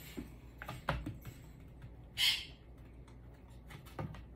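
A few light clicks and taps from handling small wooden craft pieces and glue on a work surface, with one short hissing noise about two seconds in.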